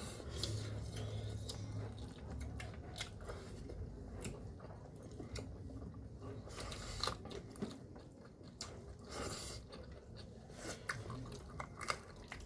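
A person chewing a mouthful of food, with scattered small crunches and clicks.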